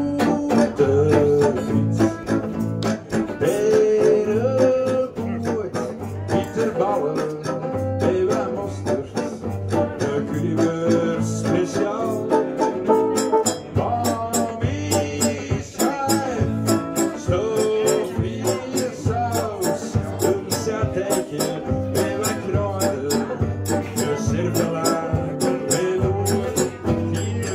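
Live band music on guitars, a steady strummed rhythm with a melody line over it, starting suddenly at the beginning.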